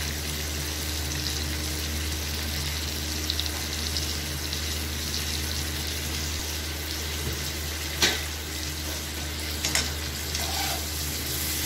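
Pointed gourd pieces sizzling as they fry in oil in an aluminium kadhai, a steady hiss over a low hum. A couple of sharp knocks, about eight and ten seconds in.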